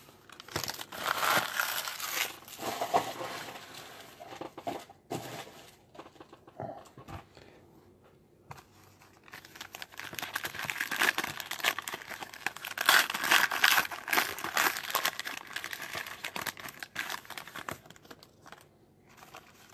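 Shiny foil trading-card pack wrappers crinkling and tearing as packs are ripped open and handled. The noise comes in two spells, with a quieter gap around eight seconds in.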